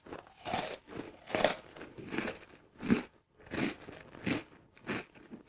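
Someone chewing crunchy food close to the microphone: about seven crunches, evenly spaced roughly two-thirds of a second apart.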